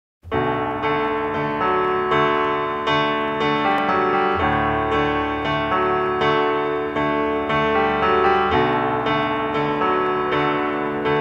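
Background keyboard music with notes and chords struck in an even pulse about twice a second, starting abruptly out of silence just after the start.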